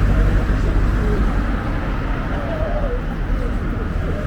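Busy street ambience: a steady rumble of road traffic with the indistinct chatter of a crowd walking along.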